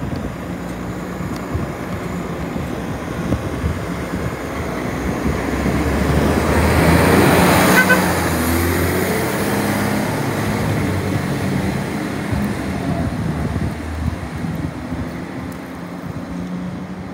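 Iveco Acco garbage truck with a MacDonald Johnston body driving past. The noise of its diesel engine and tyres builds to a peak about eight seconds in as it passes close, then drops in pitch and fades as it drives away.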